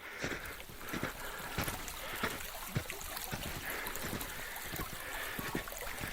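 Running water: a steady rush with scattered small clicks and knocks.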